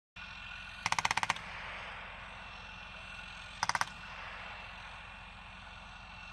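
Two short bursts of machine-gun fire, the first of about seven rapid rounds about a second in, the second of about four rounds a few seconds later, over a steady low rumble.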